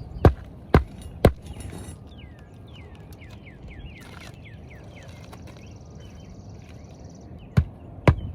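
Sharp hammer knocks in quick runs of about two a second, three at the start and two near the end. Birds chirp in the quiet stretch between them.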